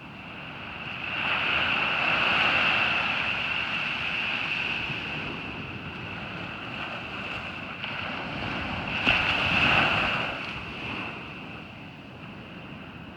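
Ocean surf breaking on a beach, swelling twice (about a second in and again near nine seconds), with wind buffeting the microphone.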